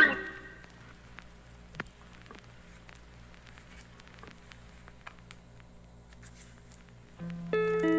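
Faint rustling and light tapping of photocards and clear plastic binder sleeves being handled, with one sharper click about two seconds in. Background music stops at the start and comes back near the end.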